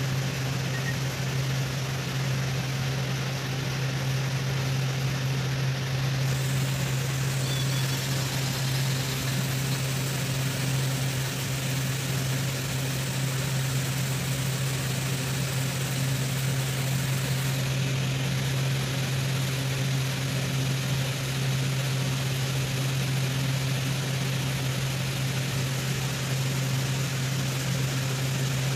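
Steady low machine hum with a constant hiss over it, unchanging throughout, as from a small motor running continuously.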